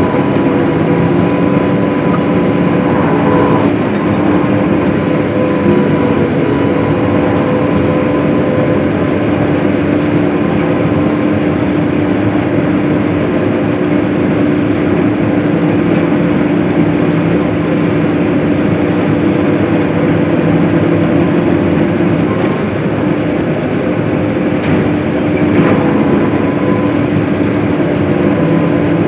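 Farm tractor engine running steadily under load while mowing hay, a constant drone with a few steady tones over a dense mechanical roar.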